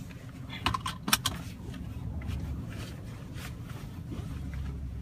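Car seat belt being pulled across and buckled: a few sharp metallic clicks about a second in as the latch plate snaps into the buckle, over a low steady hum.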